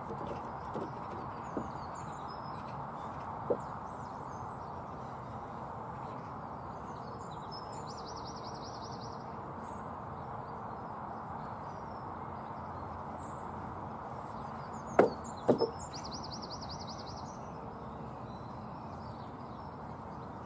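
Wooden knocks of timber laths being set into position on a wooden shed frame: a few light knocks in the first few seconds, then two sharp, louder knocks half a second apart about three-quarters of the way through.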